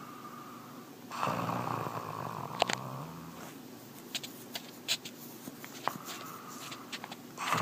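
Jack Russell terrier snoring in its sleep: a snore about a second in that lasts some two seconds, then another beginning near the end, with small clicks and pops between them.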